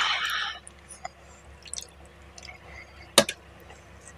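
Close-miked wet eating sounds of fish head curry eaten by hand: a loud wet sound for about half a second at the start, then faint small clicks and one sharp click about three seconds in.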